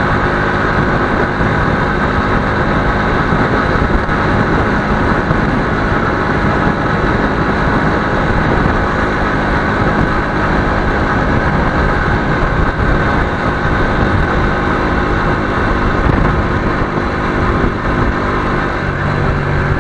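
Motorcycle engine running at a steady cruising speed with continuous road noise, picked up by a helmet-mounted camera.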